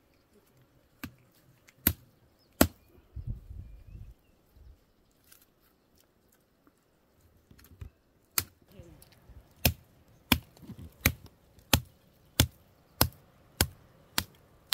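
Sharp chopping blows: three scattered strikes, a pause, then a steady run of about nine blows a little more than half a second apart.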